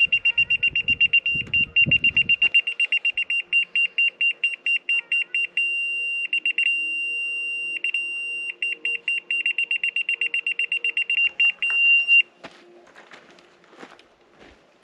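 Laser level receiver on a grade rod beeping rapidly, about four to five high beeps a second, and switching several times to a steady tone: the steady tone signals the rod is on grade with the laser, the fast beeps that it is off. The beeping stops about twelve seconds in.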